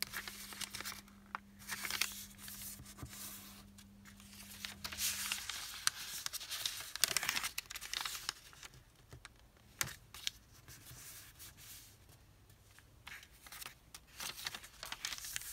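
A sheet of origami paper being folded and creased by hand: irregular rustling and crinkling as the sheet is bent, with fingers rubbing the folds flat.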